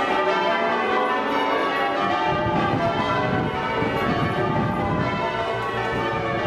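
Church bells ringing changes: a dense, continuous peal of overlapping bell tones, with a low steady tone coming in near the end.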